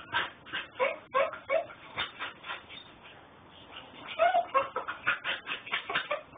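Puppy whining in short, repeated cries, several a second, with a quieter pause of about two seconds in the middle before the cries start again.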